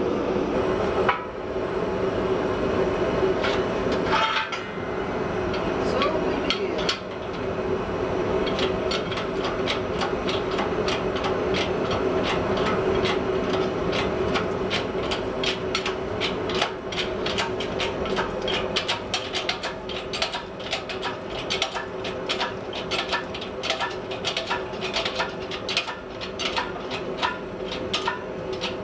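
A hydraulic press running with a steady motor hum while a red-hot steel blank is squeezed square between its plates. From about eight seconds in, a dense run of sharp metallic clicks and ticks grows thicker toward the end.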